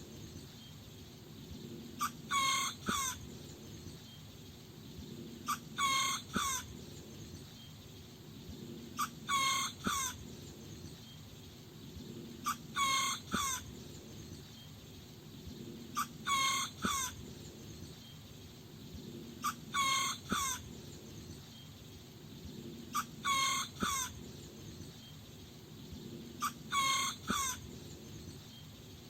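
A small rooster crowing: a short, high-pitched crow of a few quick notes, repeated eight times at even intervals of about three and a half seconds.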